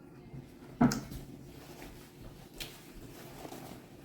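A sharp knock about a second in, followed by a few softer clicks and taps: hard objects being handled and set down.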